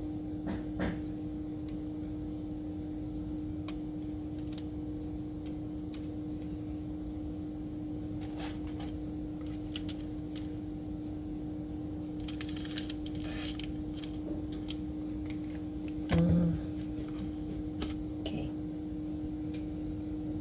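Faint clicks, taps and scrapes of hands and utensils working food on a baking pan, over a steady low hum. A brief louder clunk comes about sixteen seconds in.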